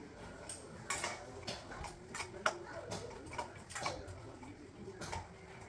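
Hands working in a steel bowl: a run of light, irregular clicks and clinks against the metal.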